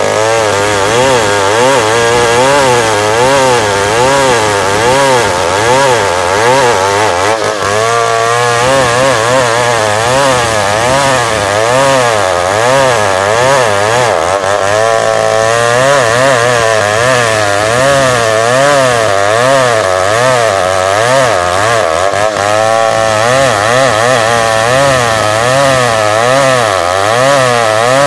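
New West 707 two-stroke chainsaw running at full throttle while ripping lengthwise through a squared timber. Its engine pitch wavers up and down about once a second as the chain loads and frees in the cut.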